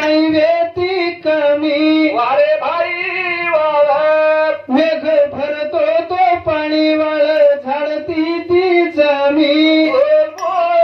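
A man singing a Banjara bhajan into a microphone, unaccompanied, in a high voice with long held notes and sliding turns between phrases.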